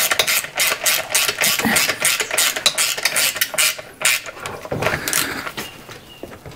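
Rapid, regular clicking of a hand tool driving screws in, about five clicks a second, stopping about four seconds in, then a few softer knocks of parts being handled.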